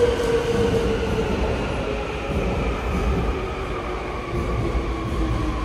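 Seoul Subway Line 2 electric train's traction motors whining, the whine slowly falling in pitch over a low rumble as the train slows.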